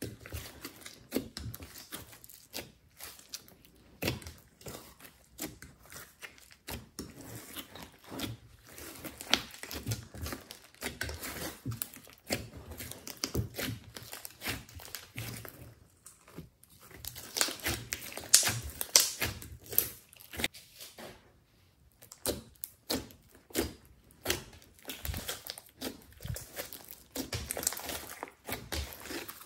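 Hands kneading and squeezing a large mass of glossy slime, making irregular sticky clicks, pops and crackles. The squishing pauses briefly a little past halfway and is loudest just after.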